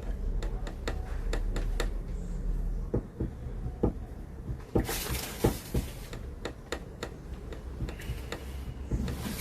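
Irregular light clicks and taps, with a brief rush of hiss about five seconds in.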